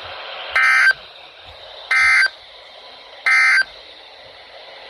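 Weather radio broadcast sending three short bursts of SAME digital data tones, each about a third of a second long and about a second and a third apart, over steady radio hiss. Short triple bursts like these are the end-of-message code that closes an alert.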